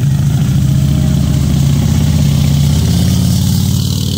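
Engines of large touring motorcycles running steadily at low speed as they roll past, a continuous low drone.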